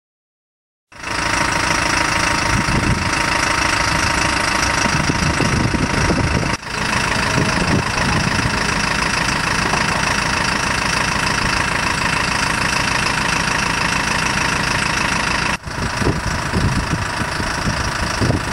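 Diesel engine of a Star 12-185 fire truck idling steadily. The sound comes in about a second in and drops out briefly twice.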